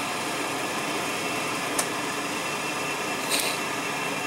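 Incinolet electric incinerating toilet's blower fan running steadily, an even whirring hiss with a faint high steady tone. A light tick comes near the middle and a short hiss a little later.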